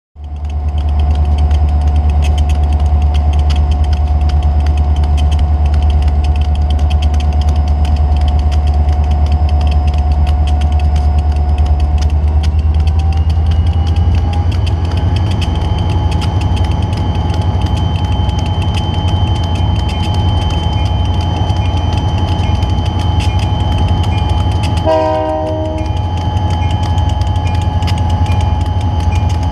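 Diesel locomotives pulling a train at low speed, their engines making a heavy, steady rumble. About halfway through, a steady whine rises in pitch. Near the end comes a short blast of the multi-chime air horn.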